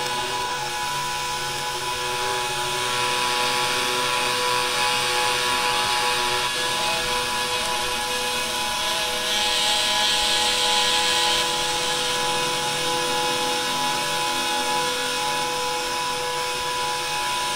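Soundtrack collage of found sounds altered with EQ and speed changes: a steady, dense noise with several held tones, and a brighter hiss that swells about ten seconds in and then fades back.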